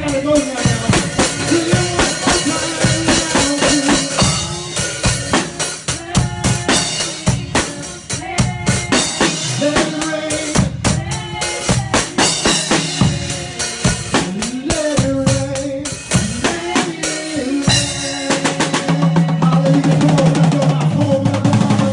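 Live worship band music led by a drum kit: kick drum, snare and rimshots keeping a steady beat over keyboard or bass notes. Over the last few seconds the drumming gets denser under a held low note.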